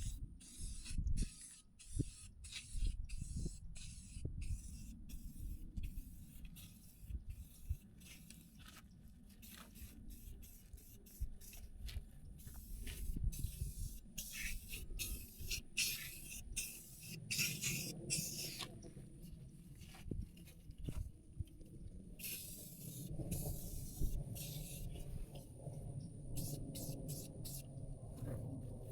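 Aerosol spray paint can spraying in many short hissing bursts, quick and close together at first, then sparser and longer; a low rumble swells underneath in the second half.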